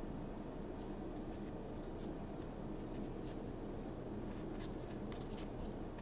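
Faint rustling and soft scattered ticks of a stack of trading cards being slid and flipped through by hand.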